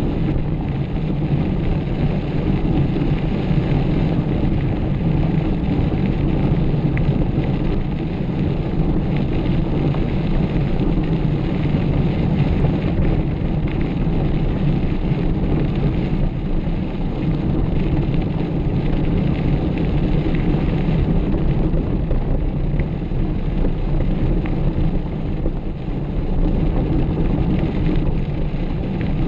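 Steady, loud rumbling noise of a mountain bike being ridden on a trail: wind buffeting the camera microphone together with the tyres rolling over the ground.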